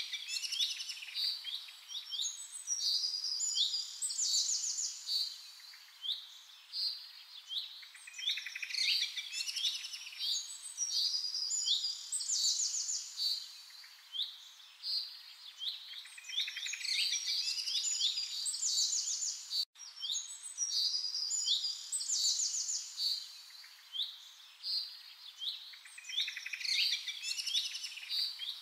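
Songbirds singing: overlapping high chirps and fast trills in phrases every few seconds, over a faint steady hiss. Near two-thirds of the way through there is a brief cutout.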